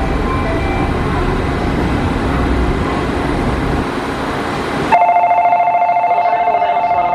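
Low steady rumble from a Tokyo Monorail train standing at the station platform. About five seconds in, a loud electronic departure signal starts: a fast-pulsing trill of a few steady tones, signalling that the doors are about to close.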